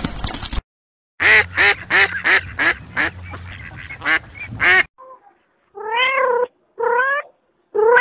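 A bar-headed goose honking in a quick run of about ten short nasal calls. After a pause come two drawn-out cat meows that rise and fall in pitch, with a third starting at the end. A loud noisy crash sound cuts off just after the start.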